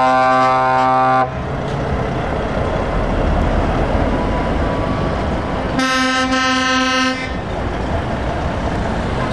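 Truck air horn blown twice: a blast already sounding at the start that cuts off about a second in, and a second blast of about a second and a half some six seconds in. Between the blasts, a heavy truck's engine runs steadily as it pulls slowly away.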